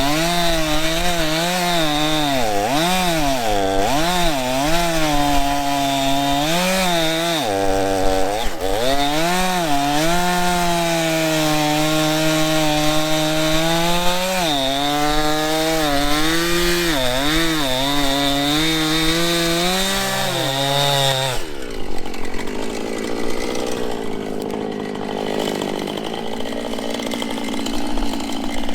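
Two-stroke chainsaw cutting through a fallen tree trunk, its engine speed rising and falling as the chain bites into the wood. About 21 seconds in the engine drops back to a lower, steadier note, then revs up again near the end.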